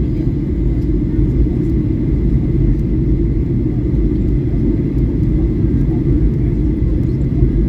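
Steady in-flight cabin noise of a Boeing 737-800 heard from a window seat: a constant deep roar of the CFM56 engines and airflow over the fuselage.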